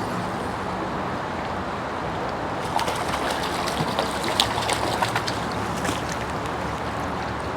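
Shallow, fast stream water rushing steadily over stones, with a flurry of short, sharp, irregular clicks and splashes from about three to six seconds in.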